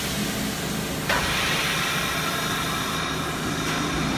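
Subway train air brakes hissing, with a loud hiss starting suddenly about a second in and holding steady over a low hum from the train standing at the platform.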